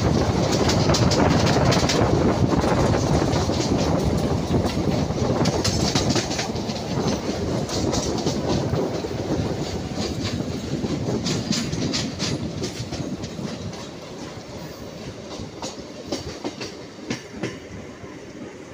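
Indian Railways passenger train running, heard from an open coach doorway: steady wheel rumble on the rails with irregular clickety-clack clicks over the rail joints. The rumble dies down noticeably after about twelve seconds.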